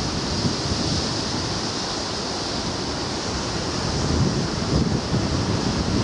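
Sea waves washing and breaking, a steady rush of surf with wind buffeting the microphone. The low rumble swells somewhat louder about two-thirds of the way through.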